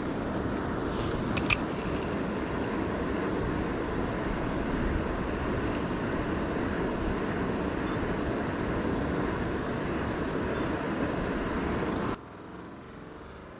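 Steady outdoor rushing noise with a brief light click about a second and a half in. The noise drops sharply near the end.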